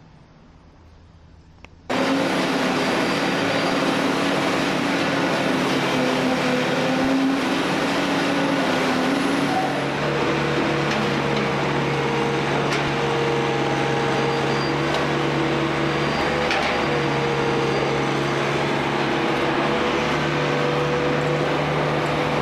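An engine-driven machine running steadily with a constant hum, starting abruptly about two seconds in.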